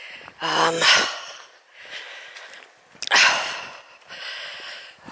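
A walker breathing hard from the exertion of climbing a hill: a short voiced sigh about half a second in, then loud, breathy exhales about three seconds in and again near the end.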